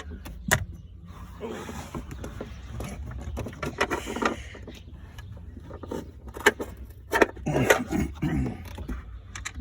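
Hand work on a 2011 BMW 328i to disconnect its battery: metallic clicks, rattles and scraping of tools and parts. There is a sharp click about half a second in and a burst of clicks and knocks near the end, over a steady low hum.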